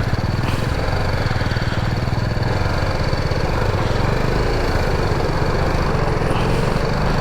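Motorcycle engine running steadily at low speed while being ridden, its low even firing beat holding a constant pace with no revving.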